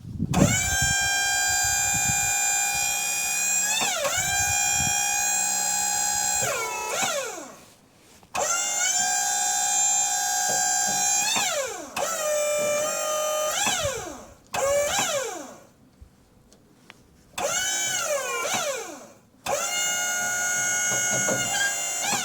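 Wood-Mizer LT35 sawmill's hydraulics whining in six bursts of a few seconds each as the log is turned. Each burst holds a steady high whine that sags in pitch partway through as the system takes load, then winds down in a falling glide when the lever is released.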